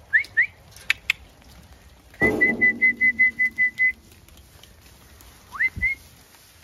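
A person whistling: two quick rising whistles, then a fast run of about ten short even notes, then one more rising whistle near the end. A loud knock with low ringing comes as the run begins, and there are a couple of sharp clicks about a second in.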